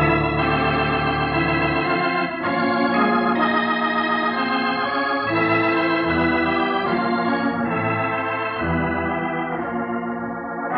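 Organ music bridge of held chords that change every second or two, swelling near the end and then dying away. It is a scene-change cue in a radio drama.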